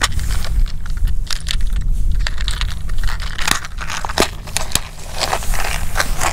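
Small clear plastic compartment tackle box being handled: many sharp clicks, taps and scrapes of the plastic, then rustling as a hand rummages in a fabric waist bag near the end, over a steady low rumble.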